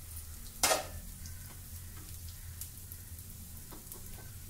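Ghee sizzling softly under appam batter frying in a non-stick paddu (appe) pan on a low gas flame. Less than a second in comes one sharp clink as the steel lid is set down on a plate, and a few faint spoon taps follow later.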